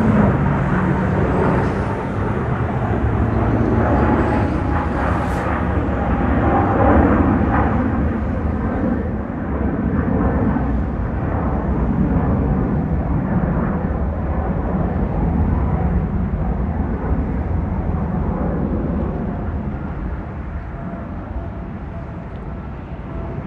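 Jet engine noise from a Boeing 777 freighter's two turbofans as the aircraft passes, a steady dense rumble with a faint whine in it that eases off over the last few seconds.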